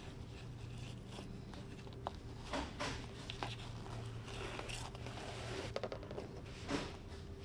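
Scattered light scrapes, rustles and a few sharp clicks of hand work on convertible-top material and wire, over a steady low hum.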